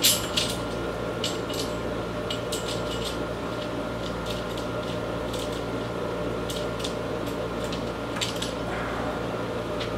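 Steel saw chain clinking and clicking in scattered light taps as it is worked by hand around a long chainsaw bar, over a steady background hum.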